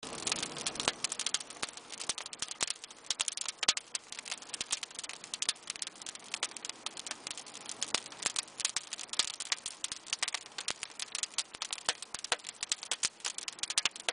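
Wood fire crackling in a masonry wood-fired oven: burning logs give off a dense, irregular stream of sharp pops and snaps over a soft hiss.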